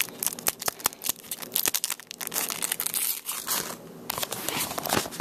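Wrapper of a Wacky Packages trading sticker pack being torn open and crinkled by hand, a run of crackling rustles.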